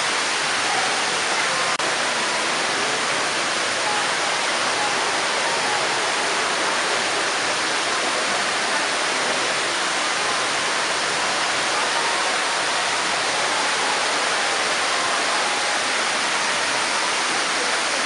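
A four-storey indoor waterfall, water falling in a curtain down a tall wall, with a steady, even rush of falling water.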